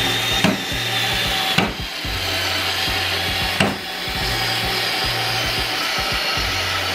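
Xiaomi Mijia cordless electric screwdriver running under load, driving a long screw into wood: a steady motor whir with the screw grinding through the wood, and a few brief dips. The tool is straining on the long screw.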